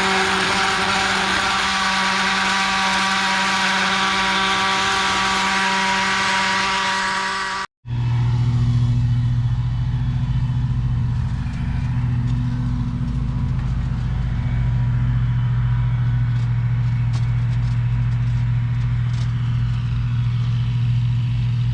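Steady engine and road drone of a motor vehicle driving. It breaks off abruptly about eight seconds in, then resumes with a lower-pitched drone.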